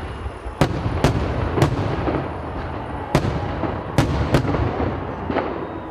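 Fireworks exploding: about seven sharp bangs at uneven intervals over a steady rumble of more distant bursts.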